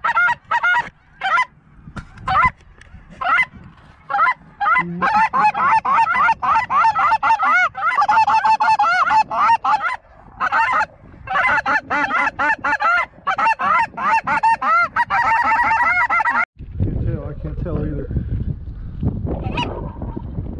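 Snow geese honking: separate high calls at first, then a dense chorus of many overlapping calls that stops suddenly about sixteen seconds in, leaving a low rushing noise.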